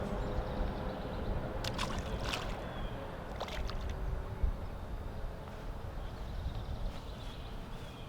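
Creek water flowing steadily under a low rumble, with a few short clicks about two and three and a half seconds in.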